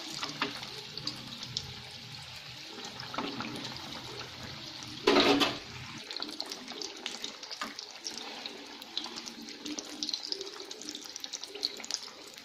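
Batata vadas, gram-flour-battered potato balls, deep-frying in hot oil: a steady sizzle with many small crackling pops. A brief louder noise comes about five seconds in.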